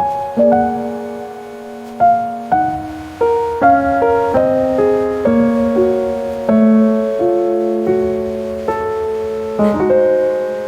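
Soft background piano music: a gentle, slow melody of struck notes that ring and fade.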